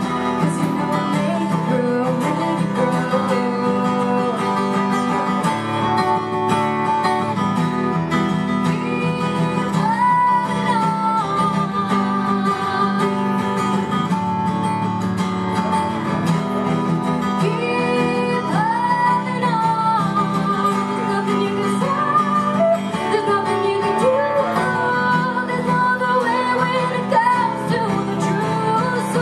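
Live acoustic guitar playing chords, with a woman singing a melody over it.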